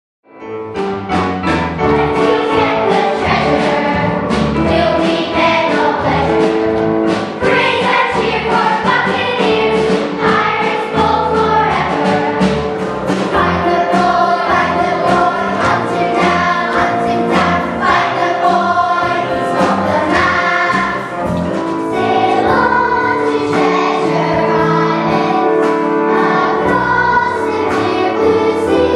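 A children's choir singing a number from a stage musical over instrumental accompaniment with a steady beat.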